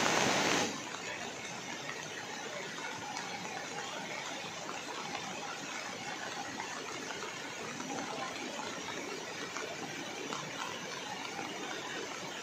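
Steady rushing of a muddy river in flood, louder for the first moment and then even.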